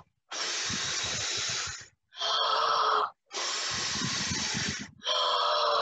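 Exaggerated wolf-style huffing and puffing: long, hissing blows out alternate with loud gasping in-breaths that carry a voice-like pitch, two blows and two gasps in turn.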